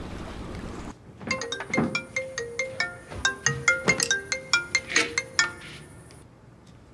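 Mobile phone ringing with a melodic ringtone: a quick tune of short pitched notes that starts about a second in and stops about five seconds later, an incoming call that is then answered.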